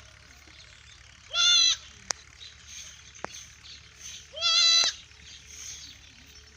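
A goat bleating twice, each bleat a loud, high call of about half a second, about three seconds apart. Two short sharp clicks fall between the bleats.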